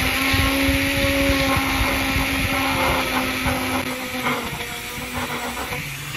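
An electric power tool's motor running steadily with a constant hum, easing off a little after about four seconds.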